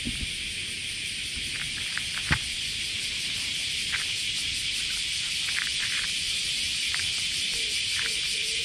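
A cat chewing dry kibble, with scattered short crunches and one loud crunch a couple of seconds in, over a steady high-pitched hiss.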